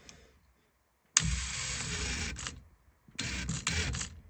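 Screws being driven into a 1965 Mustang's steering column to mount the turn signal assembly: two bursts of harsh mechanical noise, each a second or so long, the first starting about a second in.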